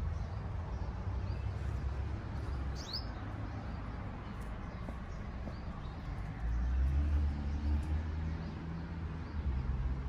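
Outdoor garden ambience: a steady low rumble that gets heavier from about six and a half seconds in, with a single short bird chirp about three seconds in.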